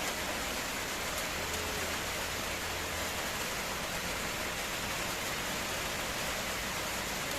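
Steady sizzling hiss of hot oil in a frying pan.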